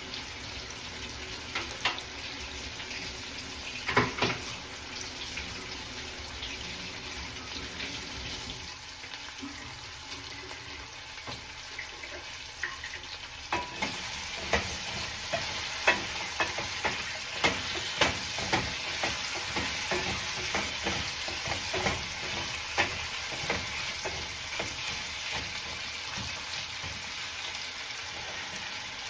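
Potatoes frying in hot oil in a pan: a steady sizzle with sharp clicks and knocks. There are a couple of louder knocks about four seconds in, and the clicks come often from about halfway through.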